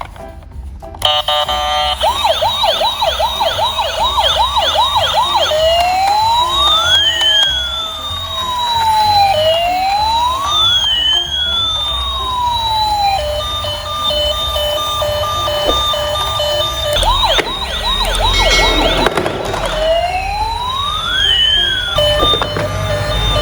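Electronic emergency-vehicle siren cycling through its patterns: a fast warbling yelp, slow rising and falling wails, and a steady on-off pulsing tone, repeating. A burst of noise comes in about eighteen seconds in.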